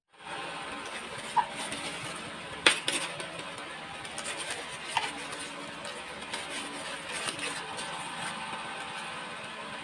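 Clear plastic zip-lock bag of small parts being handled and opened, crinkling, with a few sharp clicks of hard plastic pieces; the loudest click comes near three seconds in.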